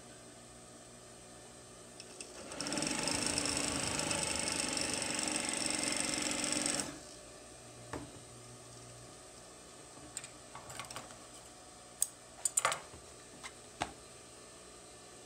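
Pfaff 463 industrial sewing machine running at a steady speed for about four seconds, stitching through heavy fabric, then stopping abruptly. A few short, sharp clicks and rustles follow as the fabric is handled.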